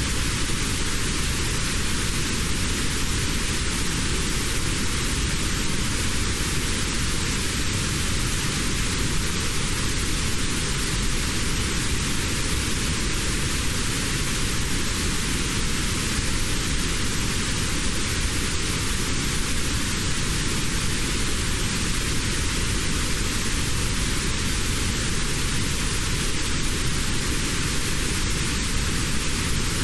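Steady hiss of notched white noise: an even rushing noise across the whole pitch range with one narrow band in the middle cut out. It is played as a tinnitus-relief sound and does not change at all.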